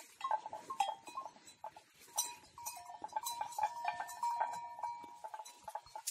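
A herd of domesticated mithun (gayal) moving through scrub, with a bell clinking irregularly, each clink ringing briefly, over rustling brush.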